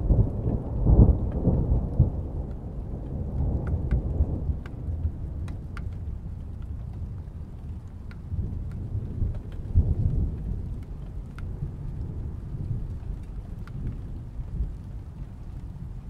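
Distant thunder rumbling deep and low, strongest over the first couple of seconds, swelling again about ten seconds in, then tapering off. Scattered faint ticks sound over the rumble.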